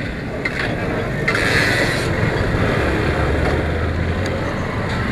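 Motorcycle engine running as the bike pulls away from the roadside, with wind and road noise on the helmet-mounted microphone. A brief hiss comes about a second in, and a steady low engine hum shows from about three seconds in.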